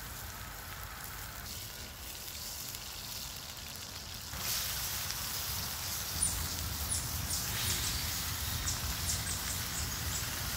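T-bone steak sizzling in a speckled enamel pan over a campfire, a steady hiss that grows louder about four seconds in, with sharp crackles and spits of fat from about six seconds on.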